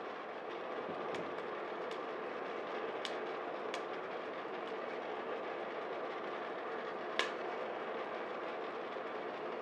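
Stovetop-style coffee roaster, a West Bend Stir Crazy popper with a turbo convection oven on top, running steadily: the oven's fan and the stirring arm turning the beans mid-roast, just before first crack. A few scattered sharp clicks sound over it, the loudest about seven seconds in.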